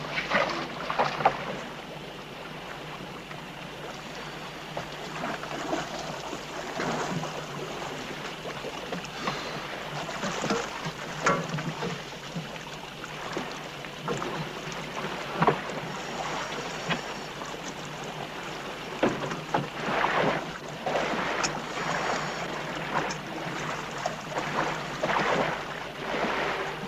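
Sea water sloshing and splashing against the side of a boat, with scattered irregular splashes and knocks as scuba divers go into the water beside the hull.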